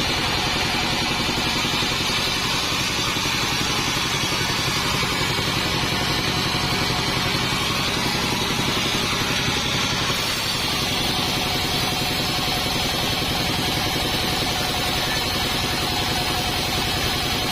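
Band sawmill's engine running steadily, with a steady whine joining about ten seconds in.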